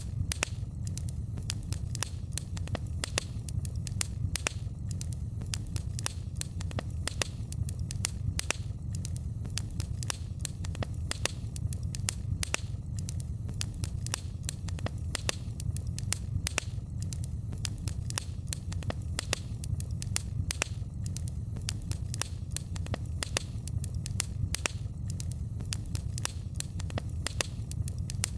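Wood fire in a fireplace crackling: many irregular sharp pops and snaps over a steady low rumble of the flames.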